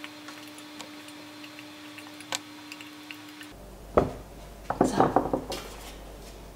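A spatula knocking and scraping against stainless-steel bowls as kneaded dough is worked out of a Thermomix mixing bowl into a metal bowl: one sharp knock about four seconds in, then a quick run of clattering and scrapes. Before that, only a faint steady hum and a few small clicks.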